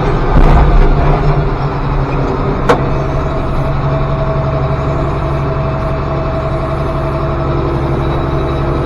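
Tractor engine idling steadily, with one sharp click about three seconds in.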